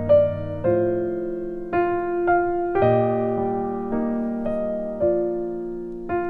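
Background piano music: a slow melody of single notes and chords struck every half second to a second, each one ringing and fading.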